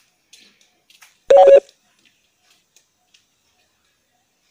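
A single short, loud beep-like tone about a second in, lasting about a third of a second. Around it are faint clicks from the tripod's aluminium legs being handled.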